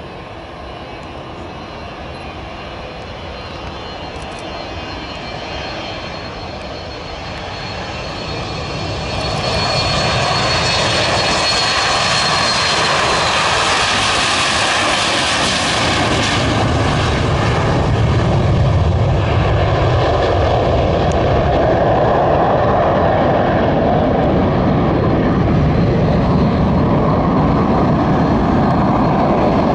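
Boeing 737-200's Pratt & Whitney JT8D turbofans running at takeoff power during the takeoff roll and climb-out. The noise grows louder over the first ten seconds, with a thin high whine in the first half, then stays loud and steady as the jet lifts off and climbs away.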